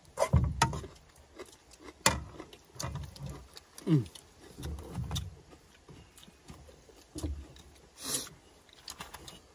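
Metal cookware being handled: a ladle against a large wok and the wok lifted and knocked, in scattered clinks and knocks with low thumps. A short harsh scraping sound comes about eight seconds in.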